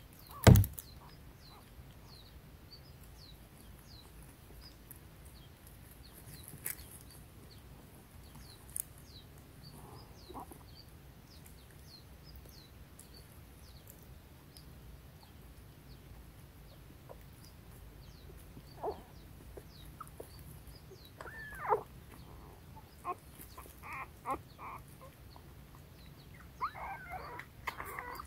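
Young puppies in a den giving occasional short squeaks and whimpers that bend in pitch, building to a burst of wavering whining near the end. A sharp knock comes about half a second in, and faint high chirps repeat in the background.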